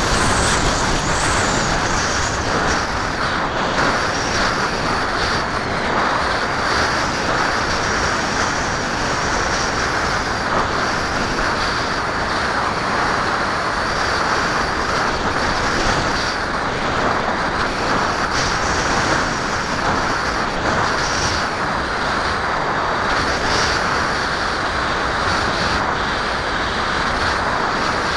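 Onboard sound of a HobbyKing Skyfun RC plane in flight: steady rushing wind noise over the aircraft's microphone, with a faint high whine from its electric motor and propeller that wavers in pitch.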